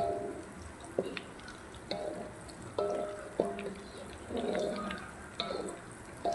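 Grated galangal deep-frying in a wok of oil, bubbling and sizzling; the oil is still foaming, so the frying is not yet done. A spatula stirring it knocks against the wok about five times, and most knocks leave the wok ringing briefly.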